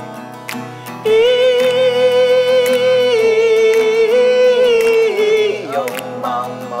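Acoustic guitar strummed in a steady rhythm under a man's singing voice. About a second in he holds one long high note for some four seconds, which wavers slightly and slides down at its end, and the strumming carries on.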